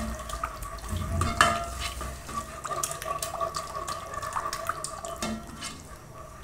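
Curry sauce with water just added bubbling and sizzling in a pot on the stove, with light clicks of a spoon stirring.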